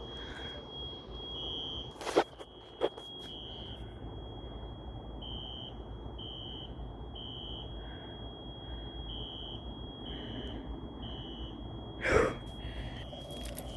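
Fire alarm horns sounding in the temporal-three evacuation pattern, heard from a distance: three short high beeps about a second apart, a pause, then again, over a thin steady high tone. A sharp click comes about two seconds in and a thump near the end.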